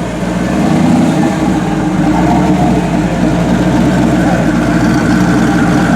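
SSC Ultimate Aero's twin-turbo V8 running at low revs as the car comes up. It grows louder over about the first second, then holds steady.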